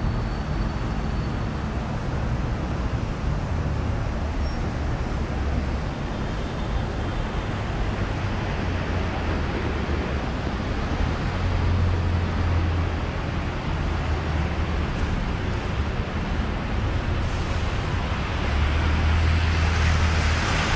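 Busy city road traffic: a steady low rumble of bus and car engines passing. It grows louder near the end as a red double-decker bus draws alongside.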